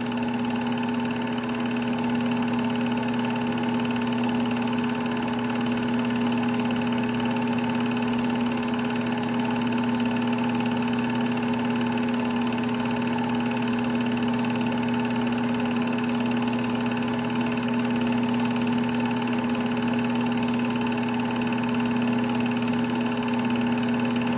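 Sears 'Tower' movie projector running steadily, a constant mechanical hum of its motor and film drive as it plays a silent home-movie reel.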